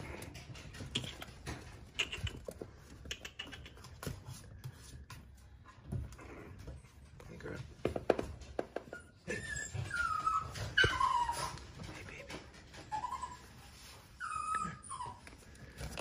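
Boston terrier puppy whining in a string of short whimpers that fall in pitch, bunched in the second half. Earlier come light taps of its claws on the hard tile floor.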